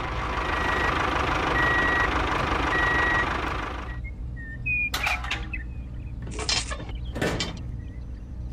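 A vehicle reversing alarm beeps three times, evenly spaced, over a steady engine-like rumble and hiss that stops about four seconds in. A few sharp clicks and knocks follow.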